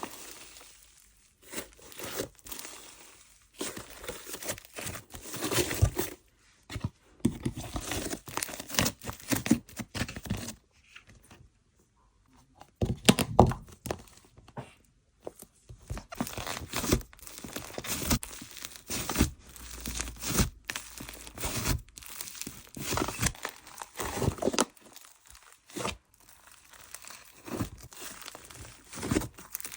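Butter fizz slime being worked by hand, giving crackling, tearing sounds in irregular bursts, with a couple of short pauses.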